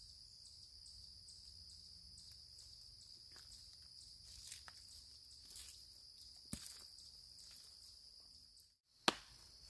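Faint steady chirring of crickets or other insects, with a few soft footsteps on dry fallen leaves around the middle. The sound drops out for a moment near the end.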